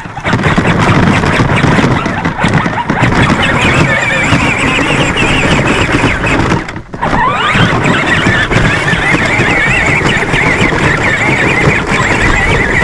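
Electric motors of a ride-on toy John Deere Gator whining as it drives over dry leaves, with a steady crunching noise under it. About seven seconds in the whine cuts out briefly, then rises again as the motors pick back up.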